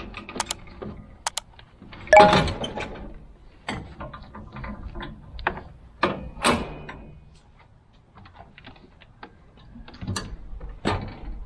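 Scattered knocks, clicks and clunks of a large backpack blower, an Echo PB-9010, being handled and settled into a trailer-mounted blower rack. The loudest clunk comes about two seconds in, another about six and a half seconds in.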